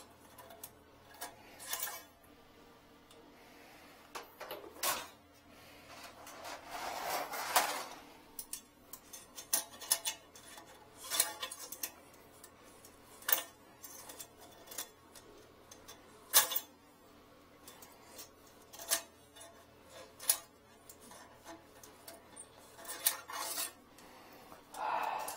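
A metal wire hook clicking and scraping against a ceramic toilet bowl and its trap as it is worked down the drain to fish out an object blocking the toilet. The clicks are sharp and scattered, with a couple of longer swishes about seven seconds in and near the end.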